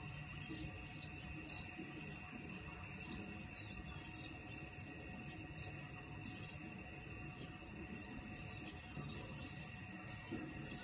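Outdoor ambience: short high chirps in groups of two or three, about two a second within a group, recurring every few seconds, over a steady high-pitched tone and a low rumble. There is a pause in the chirping about two thirds of the way through.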